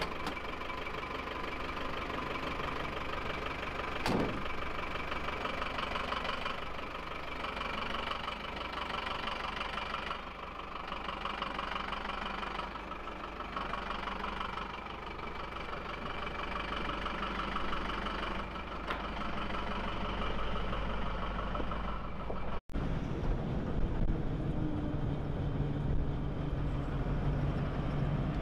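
Rescue van's engine idling steadily, with one short sharp knock about four seconds in. After a cut near the end, the engine is heard from inside the cab while driving, with a heavier low drone.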